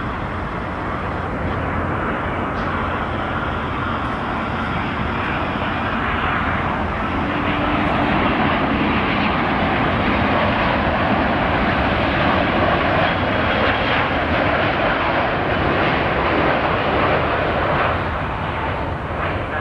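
Boeing 787 Dreamliner's twin jet engines on landing approach: a steady rush of engine noise that grows louder about seven seconds in as the airliner passes close, then eases near the end as it flares over the runway.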